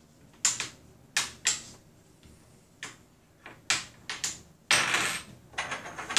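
Small hard test pieces being picked up and set down on a tabletop: a series of sharp clicks and knocks, then a louder clatter lasting about a second, about five seconds in.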